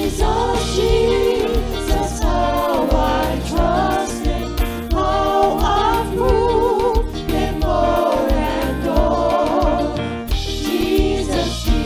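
A group of women's voices singing a gospel hymn chorus in harmony, backed by a band of Yamaha MODX8 keyboard, drum kit, electric bass and steel pan.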